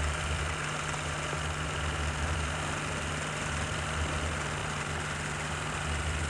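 Steady low electrical hum with an even hiss: the background noise of an old home-movie soundtrack, with no other sound over it.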